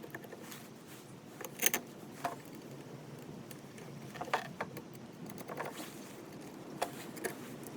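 Scattered light clicks and knocks of hands handling a flexible replacement snow blower auger blade and its hardware, fitting the blade between the auger plates.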